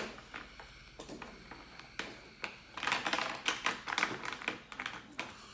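Multicolour pen scratching and tapping on notebook paper while colouring in: quick runs of short ticks and scratches, sparse at first and densest in the middle.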